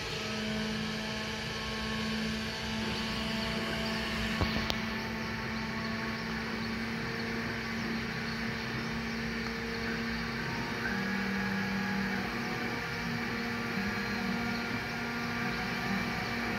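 3018 desktop CNC laser engraver working: its stepper motors whine in steady tones that switch pitch every second or two as the laser head moves from stroke to stroke, over a steady hum. A single sharp click about four and a half seconds in.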